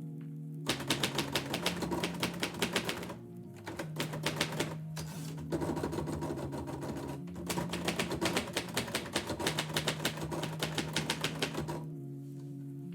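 Typewriter keys struck in rapid runs, with a couple of short pauses, stopping near the end. Soft instrumental music plays underneath.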